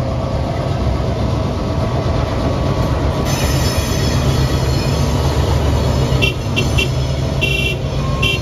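Two vintage NSW 42 class streamliner diesel-electric locomotives, with EMD 16-cylinder two-stroke engines, pulling a train past: a steady low engine rumble with wheels running on the rails, and several short, high wheel squeals from about six seconds in.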